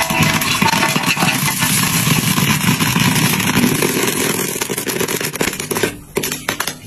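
Corn kernels popping rapidly in a wok under a stainless-steel dome lid, a dense continuous crackle that thins into separate pops near the end as the batch finishes popping.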